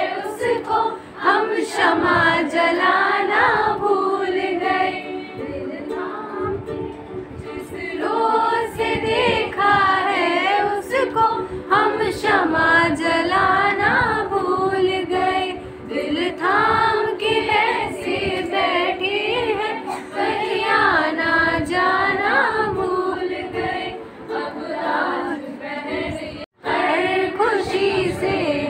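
Several voices singing a Hindi film song together, the melody wavering up and down. The sound cuts out for an instant near the end.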